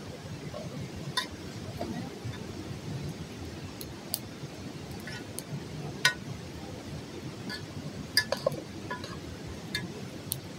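A metal utensil clinking against a black cooking pot over a wood fire: a handful of sharp, ringing clinks spread out, three in quick succession a little past eight seconds in, over a steady low rushing background.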